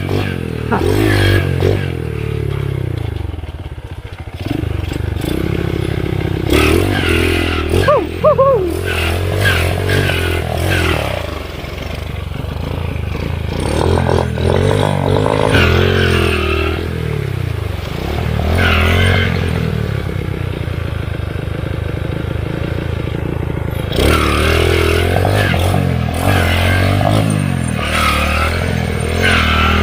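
Underbone motorcycle engine running on a rough trail, its revs rising and falling again and again as the throttle is worked.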